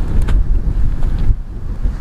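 Storm wind buffeting the microphone, a heavy uneven low rumble that rises and falls, with a few faint clicks over it.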